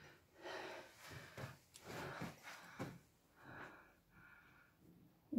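A person's faint breathing, heard as a run of short, uneven puffs, with a few light scuffs among them.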